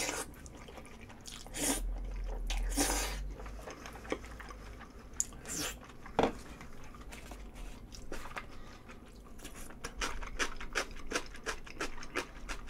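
A person eating close to a microphone: wet chewing with small crunches and mouth clicks, and a few louder bites in the first half.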